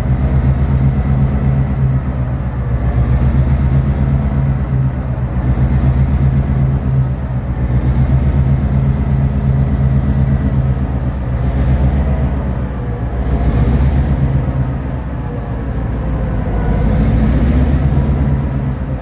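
The diesel engine of an EMD SD38-2 locomotive, naturally aspirated with no turbocharger, running steadily under load as it shoves loaded coal cars. Its deep, even drone swells and eases every few seconds.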